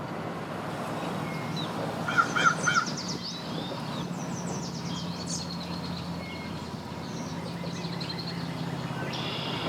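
A bird calling: a quick run of four calls about two seconds in, then fainter, higher chattering calls, over a steady low engine hum.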